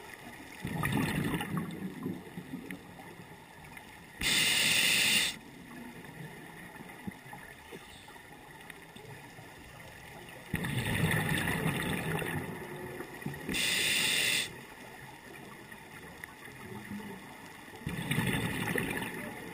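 A scuba diver breathing through a regulator underwater in a slow, regular cycle. Each exhale is a bubbling burst of exhaust bubbles lasting one to three seconds, and each inhale is a short, even hiss of air through the regulator, at about four seconds and again at about thirteen seconds.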